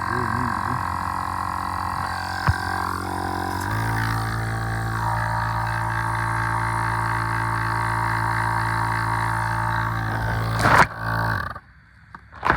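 Portable tire inflator's compressor motor running with a steady hum, dropping to a lower, heavier tone about four seconds in. Near the end there is a short burst of noise and the motor stops.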